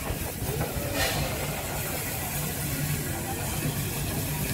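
Narrow-gauge steam locomotive 99 331 running slowly along street track, a steady low rumble with a brief hiss about a second in.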